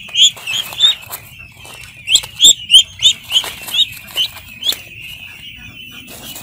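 Ducklings peeping: a run of loud, sharp peeps about three a second that stops near the end, over the steady peeping of the flock behind.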